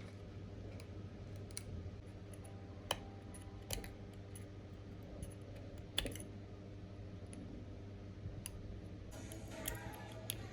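A few scattered small, sharp clicks and taps of hand tools and small parts being handled during a repair of an AirPods Pro charging case, over a steady low hum.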